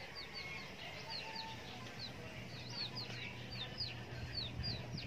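Birds chirping: many short, high, falling chirps, several a second, over a faint low steady hum.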